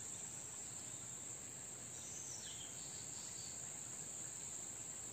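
Insects keeping up a steady high-pitched drone.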